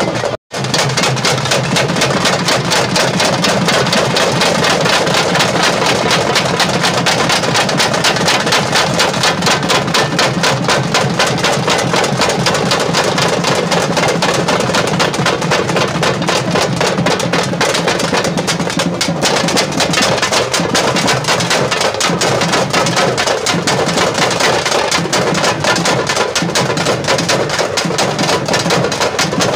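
A troupe of drummers beating fast, dense rhythms on stick-played barrel drums, loud and without pause. The sound cuts out for a split second about half a second in.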